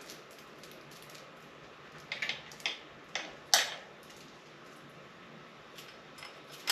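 A BMX chain handled and fitted onto the bike: a few scattered metallic clicks and clinks over faint background hiss, the sharpest about three and a half seconds in and a small cluster near the end.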